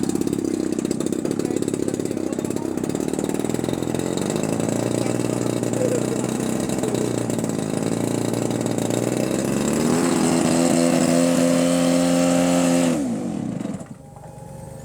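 Model airplane engine running, growing louder and steadier about ten seconds in, then sliding down in pitch and cutting off suddenly near the end.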